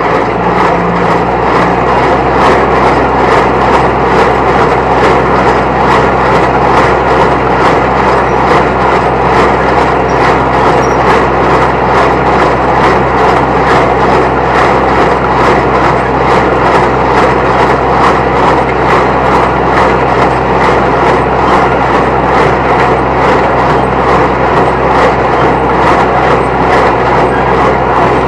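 A New Holland T1510 compact diesel tractor running steadily at working speed, driving a New Holland 269 Hayliner square baler through its PTO. The baler's clatter repeats evenly over the engine.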